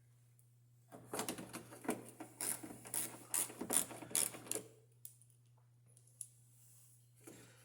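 A quick, irregular run of clicks and rattles from small hard parts being handled, about 3.5 s long, starting about a second in. A steady low hum runs underneath.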